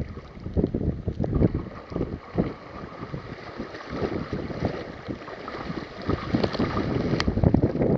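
Wind buffeting the microphone in irregular gusts, over water sloshing and splashing around a kayak in small waves. There is one sharp click about seven seconds in.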